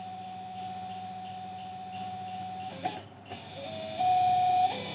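Tian Hong 550-watt sewing-machine servo motor running with no load, giving a steady electric whine. About three seconds in the whine breaks briefly with a click, then steps up in pitch and gets louder as the motor's speed is raised on its control box.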